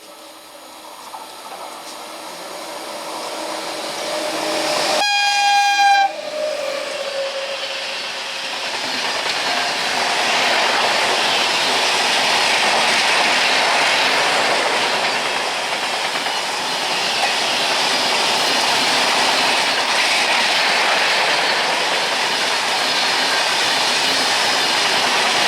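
A passing train with a short horn blast of about a second, about five seconds in, as the train nears. The rumble grows louder over the first few seconds, then the train goes by as a loud, steady rumble and wheel clatter.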